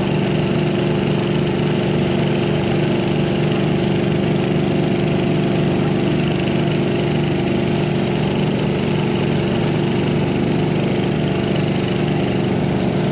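A small engine running steadily at a constant speed, with an even, unchanging drone.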